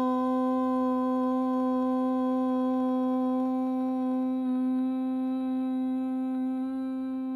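A woman's voice chanting a long, sustained Om on one steady low note, slowly fading.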